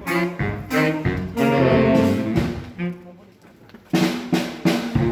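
Saxophone wind band playing with drums, the band coming in on strong accented chords. About three seconds in it drops to a brief quiet passage, then the full band comes back in.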